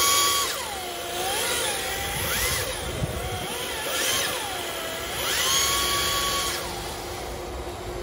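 Electric motor of a 1/10-scale RC drift car whining, its pitch swooping up and down several times as the throttle is worked through a drift, over a steady hiss of hard drift tyres sliding on a smooth concrete floor.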